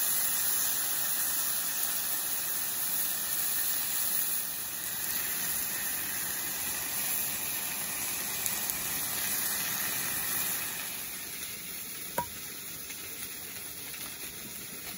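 Beef tongue sizzling on a hot griddle plate, a steady hiss. The sizzle drops to a quieter hiss about two-thirds of the way through, and a single sharp click comes soon after.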